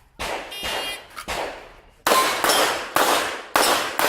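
A string of about eight handgun shots fired in quick succession, the last four coming fastest, with metallic ringing after several of them from shots striking steel targets.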